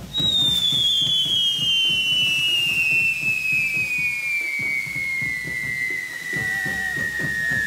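Whistling firework shrieking in one long note whose pitch falls slowly and steadily, as a pyrotechnic whistle does while its charge burns down. Drums beat a rhythm underneath.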